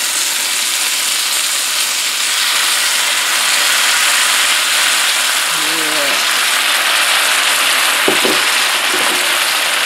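Salsa verde and ham juices sizzling steadily around a ham steak searing in a hot Lodge cast iron skillet, an even frying hiss.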